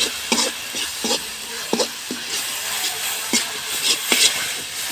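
A metal spatula scraping and knocking against an aluminium kadhai in irregular strokes as onion-tomato masala is stirred, with the masala sizzling in hot oil underneath.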